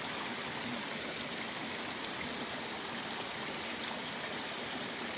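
Steady, even rush of water from a stream and waterfall pouring into a rocky pool.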